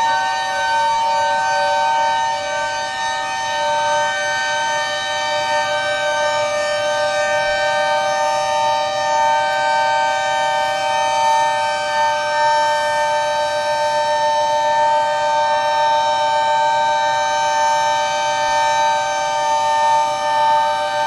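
Civil defence siren sounding one long, steady wail of several pitches held together, rising slightly at first. It is the siren for the 10 November moment of silence (saygı duruşu).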